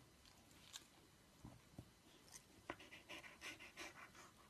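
Faint, quick panting from a Samoyed, several short breaths a second, starting about three seconds in after a few soft ticks.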